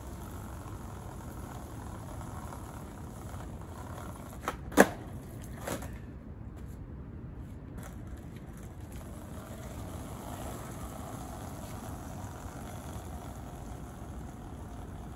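Skateboard clacking on pavement: a small knock, then a sharp loud clack about five seconds in, and a lighter clack about a second later, over a steady low rumble.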